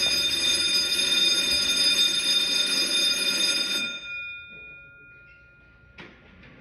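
Electric school bell ringing continuously, its hammer rattling against the gong. About four seconds in it stops and the gong rings on, fading over a couple of seconds; a short click comes near the end.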